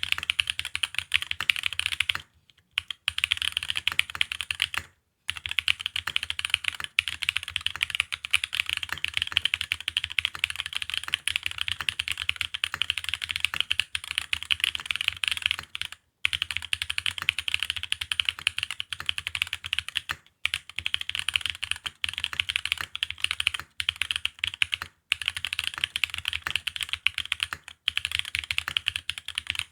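Continuous fast typing on a custom mechanical keyboard with Holy Panda tactile switches in Cherry housings on a gasket-mounted aluminium plate, a steady stream of key clacks with a few brief pauses.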